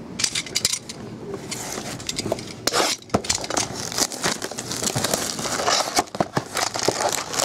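Plastic shrink wrap crinkling and tearing as a sealed box of football trading cards is unwrapped, with a flurry of small clicks and rustles from the cardboard box and its foil card packs being handled.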